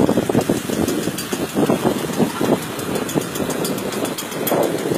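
Motorcycle engine running steadily under load, driving a Persian wheel well.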